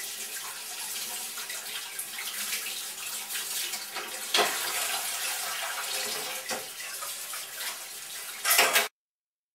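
Water running steadily from a tap, a hissing splash with a few louder surges, the loudest near the end, then cut off abruptly.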